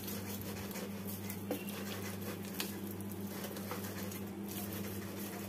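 Ripe palmyra palm fruit rubbed by hand against a perforated steel strainer to press out its pulp: faint soft squishing and scraping with scattered light ticks, over a steady low hum.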